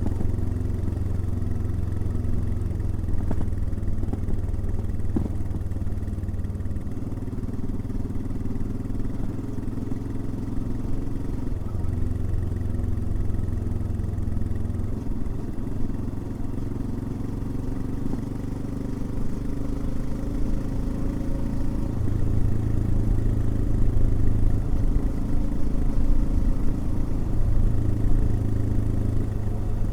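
Royal Enfield Himalayan's single-cylinder engine running under way, its note stepping up and down several times as speed and throttle change, louder in the last third.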